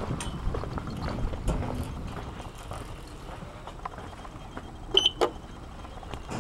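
Footsteps on a station platform, then about five seconds in a lift call button is pressed: two sharp clicks a quarter second apart with a short high beep.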